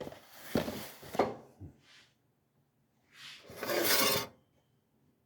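A person coughing: a harsh fit of three coughs, then a second or so later one longer rasping cough about a second long.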